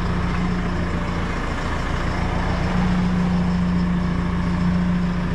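Engine of a construction loader running steadily, heard from inside its cab: a constant low hum and rumble that grows a little stronger about three seconds in.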